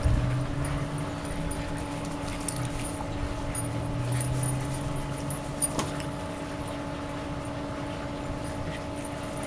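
Shiba Inu growling low while play-fighting with a duck, for about the first five seconds, over a steady background hum.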